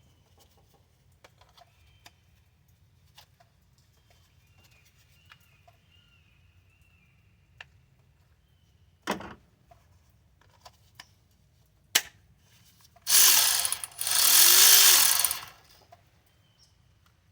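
Milwaukee cordless ratchet triggered in two short spurts near the end, its motor running up and winding down each time, after a few handling clicks and knocks.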